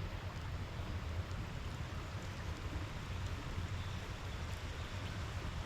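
River water running steadily, an even rush with a deep rumble underneath.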